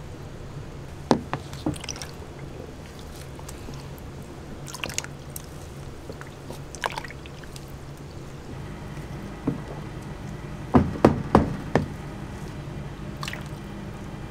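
Thick waffle batter being stirred in a plastic tub, with wet squelches and scattered sharp knocks, a quick cluster of loud ones about eleven seconds in, over a steady low hum.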